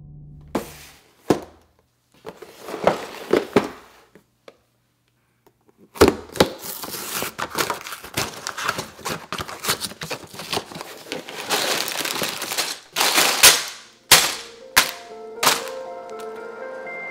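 A Lego set's cardboard box being torn open by hand: a few knocks, then a long stretch of dense crackling and tearing, with three sharp knocks near the end. Music comes in after that.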